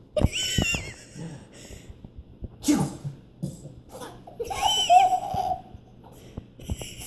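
A person making exaggerated fake sneezes, three loud ones a couple of seconds apart, two of them with a high squeaky pitch, mixed with laughter.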